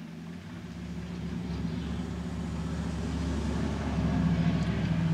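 A loud vehicle going by, its engine drone with a steady low hum growing steadily louder.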